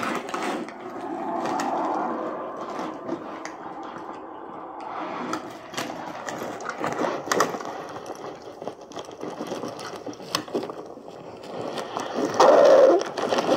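A digital voice recorder playing back, through its small speaker, a recording made inside a backpack: muffled rustling and scraping, with scattered knocks.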